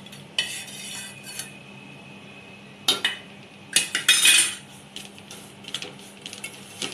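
Metal cookware clanking and scraping: a frying pan knocked against the rim of a large metal pot as roasted flour is tipped in, with a ringing clank about half a second in. A wooden spatula then stirs dry roasted semolina, knocking against the pot, loudest about four seconds in.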